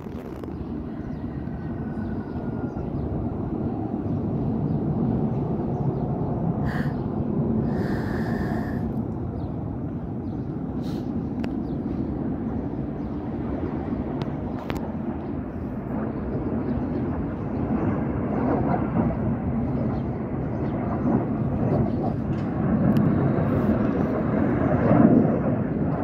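Jet engine roar of an F-16 display aircraft heard at a distance, a steady rumble that builds louder toward the end as the jet comes closer.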